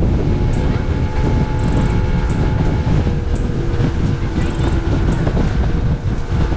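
A center-console boat's engine running under way through rough water, with heavy wind buffeting the microphone and steady water rush, and a short hiss about once a second.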